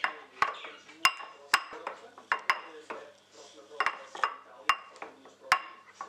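Metal fork beating a sauce in a bowl, clinking and scraping against the bowl's side in a string of irregular ringing clinks.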